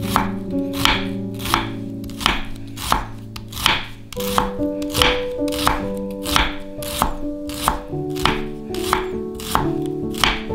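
Chef's knife thinly slicing a shallot on a wooden cutting board: a steady knock of the blade on the board about every two-thirds of a second, over soft background music.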